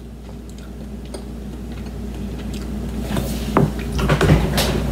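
A steady low hum in a kitchen, with a few sharp knocks and clicks of things being handled near the counter in the last two seconds.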